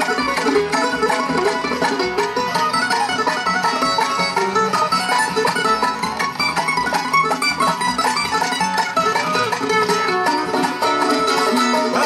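Bluegrass band playing an instrumental break with no singing: fiddle, dobro, mandolin, acoustic guitar and upright bass.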